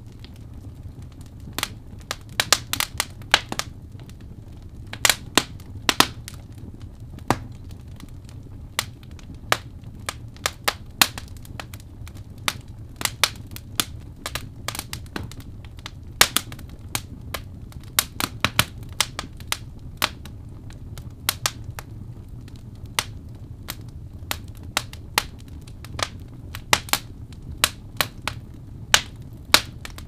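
Wood fire burning in a fireplace, crackling with irregular sharp pops, sometimes several a second, over a steady low rumble of the flames.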